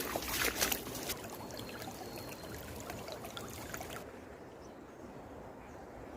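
Water sloshing and trickling, with a few splashes in the first second. About four seconds in it gives way to a duller, quieter background hiss.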